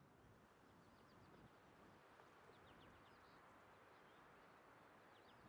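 Near silence: faint outdoor ambience with a few faint, short, high bird chirps, a small cluster of them about two and a half seconds in.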